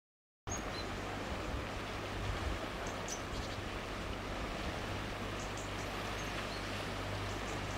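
Outdoor ambience: a steady low rumble and hiss, with a few faint, short, high chirps scattered through it.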